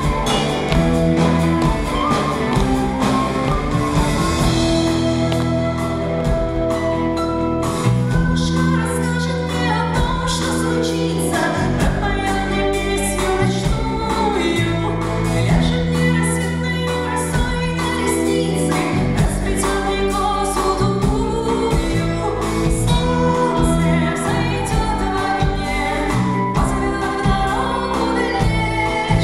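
Folk-rock band playing live, a woman singing lead over a drum kit and electric guitars with a steady beat.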